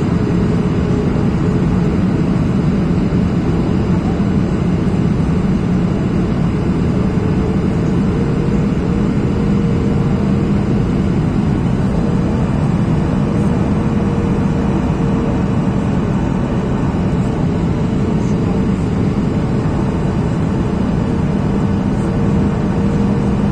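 Steady cabin noise inside a Boeing 737-800 on final approach, heard over the wing: the rush of airflow and the CFM56-7B turbofan engines, with a low hum. A faint engine tone rises slightly in pitch about eight seconds in.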